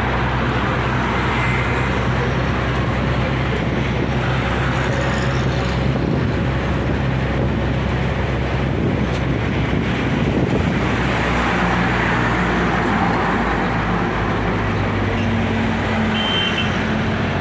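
City road traffic with a vehicle engine running steadily, and a short high beep near the end.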